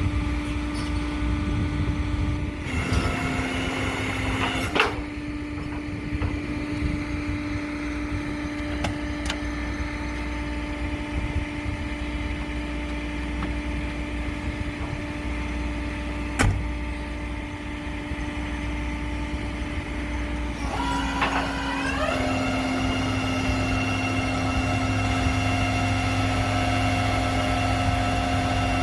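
A motor vehicle running steadily with a strong whining tone. The whine dips in pitch for a couple of seconds early on, then shifts again with a short rising glide about twenty-one seconds in. Two sharp clicks break through.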